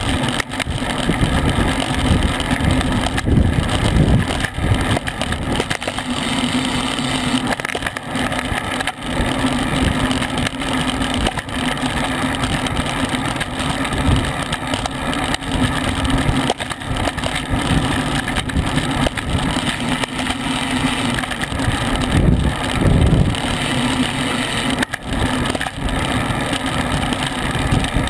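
Wind buffeting the microphone of a bike-mounted action camera moving at about 20 mph: a loud, gusty rush with a steady low hum under it.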